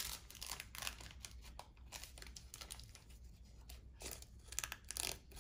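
Faint rustling and crinkling of a trading-card pack wrapper and cards being handled, with short scratchy strokes that get a little louder about four seconds in.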